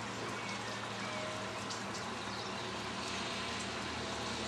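Faint, steady outdoor background noise with a low hum and a few faint chirps.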